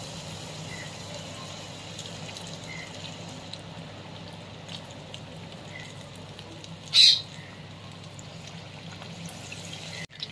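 Chicken drumsticks deep-frying in hot oil in a kadai: a steady bubbling sizzle. About seven seconds in there is one brief, sharp high-pitched sound.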